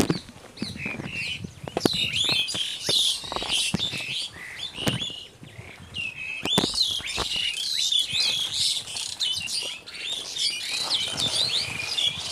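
Birds chirping and calling: many quick, rising and falling whistled notes overlapping one another, with occasional sharp knocks and clicks.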